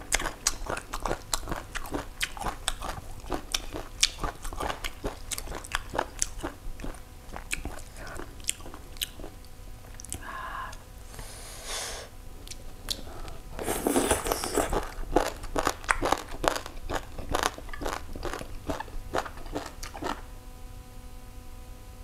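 Close-up mouth sounds of someone eating a salted cà xỉu (lingula) salad: many quick, crisp crunches and chewing. A louder, noisier stretch comes about fourteen seconds in.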